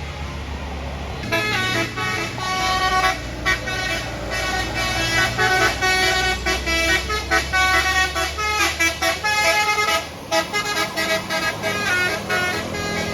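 A bus's Basuri 'telolet' musical horn playing a quick tune of changing notes, pausing briefly near the end, over the low rumble of the bus's engine. The engine is heard alone for about the first second before the horn starts.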